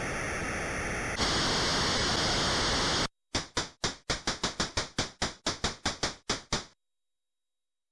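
Retro 8-bit computer noise sound effects. A steady hiss turns brighter and louder about a second in and cuts off at about three seconds. Then comes a quick run of about fifteen short, quickly fading noise blips, roughly four a second, one for each binary digit typed on screen.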